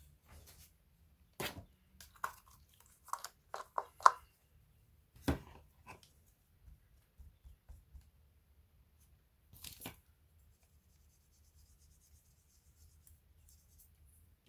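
Sharp clicks and taps of laptop parts and tools being handled, a quick cluster of them in the first five seconds with the loudest about four seconds in, then one more near ten seconds.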